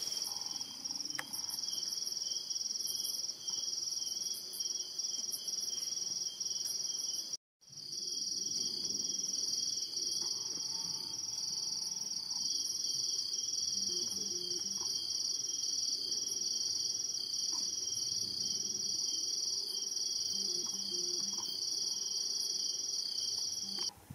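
Night chorus of crickets: a dense, steady high trill with a fast regular pulse that drops out for a moment about seven seconds in.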